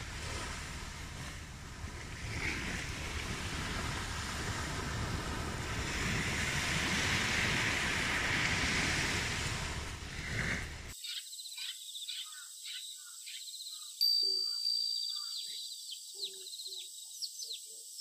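Small waves washing onto a sandy beach, the surf noise swelling and easing. About eleven seconds in it stops abruptly and gives way to quieter, high chirping bird calls.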